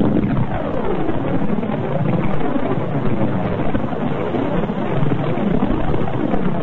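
Space sound recording presented as the sound of Saturn's rings: a dense, continuous wash of many overlapping tones sweeping up and down.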